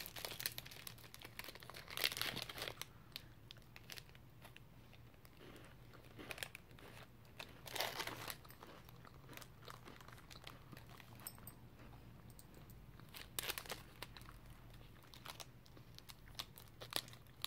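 Faint, scattered crinkling of a plastic biscuit wrapper being handled, in short bursts separated by long quiet gaps.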